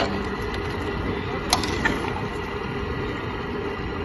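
Steady sizzling hiss of beef pieces frying in oil on a large steel tawa, with two sharp metal clinks of the spatula against the griddle about a second and a half and two seconds in.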